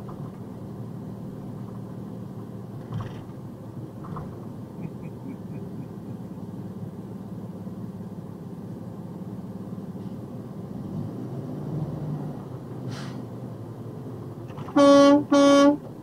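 Steady box-truck cab and road noise, then two short, loud blasts of the truck's air horn about a second before the end.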